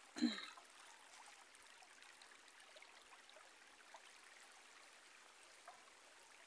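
Faint, steady trickle of a shallow, rocky river running over stones, with one short, loud call just after the start.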